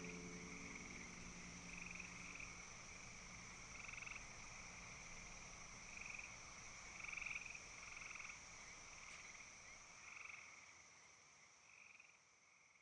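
Faint chorus of frogs: short trills repeating every second or two over a steady high hiss, fading away near the end. The last low notes of background music die out in the first couple of seconds.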